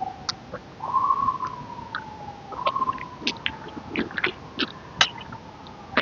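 Birds calling: scattered short, sharp chirps and two long whistles that glide slowly down in pitch.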